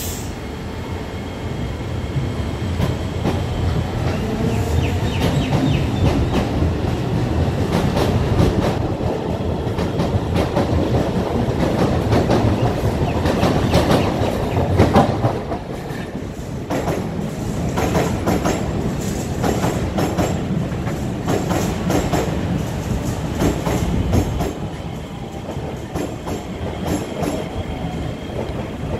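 SMRT MRT trains on elevated track: one running past on the adjacent track while another approaches and draws in, wheels rumbling and clicking over rail joints. The rumble is loudest in the first half and gives way to a run of sharper clicks in the second half.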